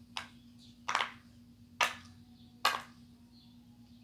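Silicone pop-it fidget toy having its bubbles pressed one at a time: four short sharp pops, about one every 0.8 seconds.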